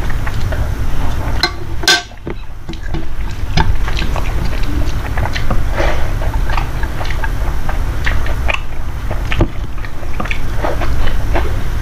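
A person eating close to the microphone: chewing and mouth noises with many small irregular clicks, and one sharper click about two seconds in, over a steady low hum.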